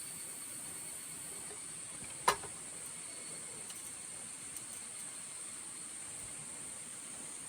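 Steady high-pitched chirring of insects, with a single sharp click about two seconds in.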